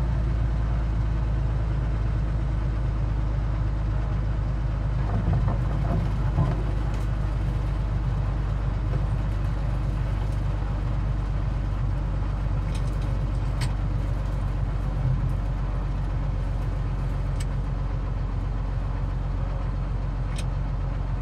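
Cessna 182Q's six-cylinder Continental engine and propeller droning steadily in flight, heard from inside the cabin.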